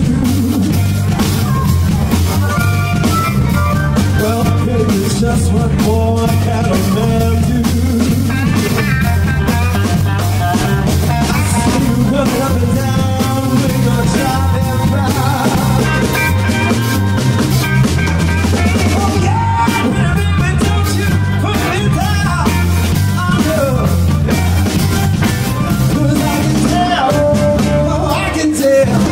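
Blues band playing live through PA speakers: electric guitar and keyboard over a steady beat, with a singer.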